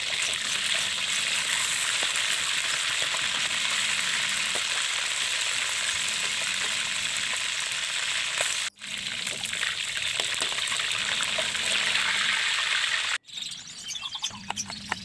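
Chicken pieces frying in hot oil in a wok: a steady, loud sizzle that cuts out suddenly twice. Near the end it gives way to a run of knife taps on a wooden cutting board as a shallot is sliced.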